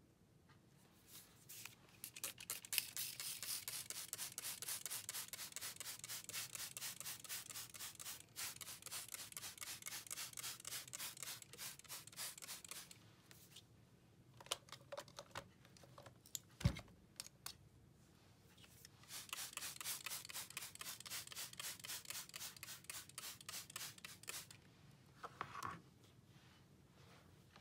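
Trigger spray bottle of all-purpose cleaner squeezed rapidly and evenly, misting over a vinyl doll in two long runs of sprays, with a single thump in the pause between them.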